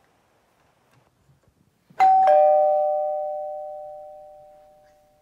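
Two-tone ding-dong doorbell chime: a higher note and then a lower note about a third of a second later, both ringing on and fading slowly over about three seconds.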